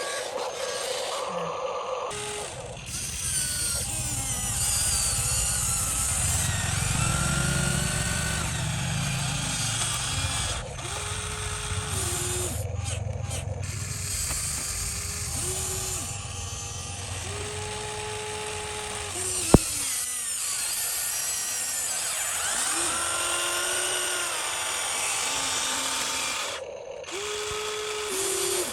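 Small electric motors and gearboxes of Huina radio-controlled construction toys whining as they start, run for a second or two and stop, over and over. There is a single sharp click about two-thirds of the way through.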